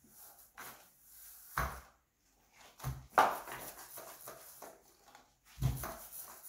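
Paint roller being worked over a ceiling, a soft swishing broken by three short knocks and bumps from handling the roller and tools.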